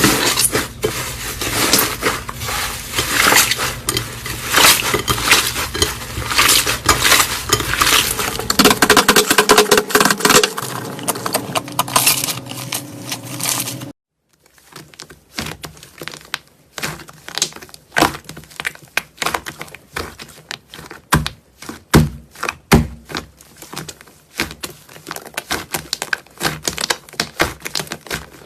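Slime being squeezed and pressed by hand, making dense crackling and popping. After a sudden cut about halfway through, a second slime clip follows with sparser, separate pops and clicks.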